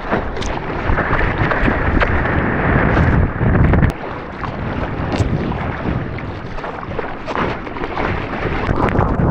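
Ocean water rushing and wind buffeting a surfer's GoPro microphone in the surf, a dense, loud rushing noise that drops suddenly about four seconds in.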